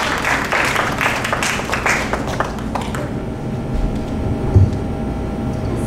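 Audience applauding for about three seconds, the clapping thinning out and stopping. About four and a half seconds in there is a single low thump.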